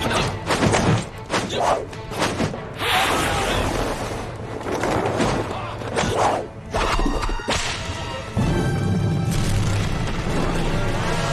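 Martial-arts fight sound effects: rapid swishes of swung weapons and limbs, and thuds and impacts, over a background music score.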